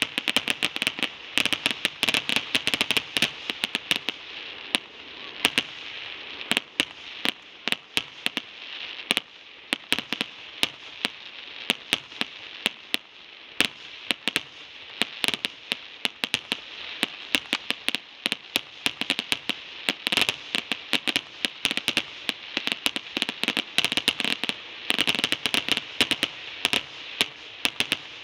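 Aerial fireworks shells bursting in quick succession: a dense, continuous run of sharp bangs and pops over steady crackling.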